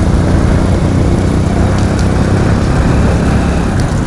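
Steady low rumble of a moving road vehicle running, with no distinct events standing out.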